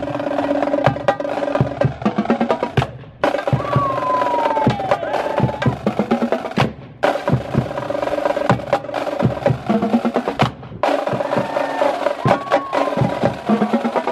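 Marching drumline playing a fast cadence on snare drums and multi-drum tenor sets (quads): dense, rapid stick strokes over ringing drum tones. The sound cuts off abruptly three times for a moment.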